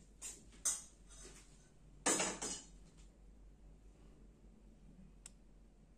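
Faint handling noises: two short knocks or rustles within the first second, a louder rustle or scrape lasting about half a second around two seconds in, and a small click near the end.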